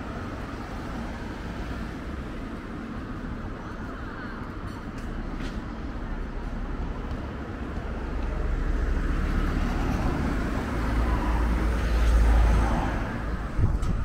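Street traffic with a minivan driving past close by: the low engine and tyre noise builds steadily and is loudest near the end.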